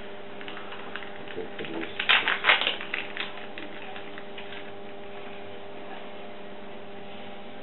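A steady electrical hum with several fixed pitches. About two seconds in, a short cluster of crackling, rustling handling noises is the loudest sound.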